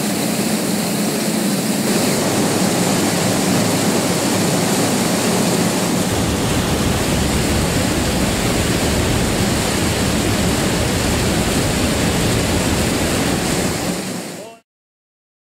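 Claas Lexion 570 TerraTrac combine harvester running in the rice field: a loud, dense mechanical rush with a steady low hum, heavier in the bass from about six seconds in. It fades out about a second before the end.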